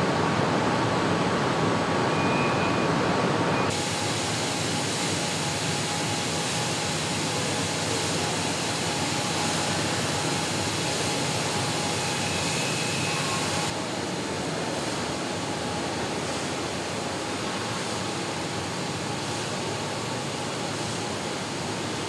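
Steady hiss and rumble of background noise, with no distinct impacts. It changes abruptly in tone twice, about four and about fourteen seconds in.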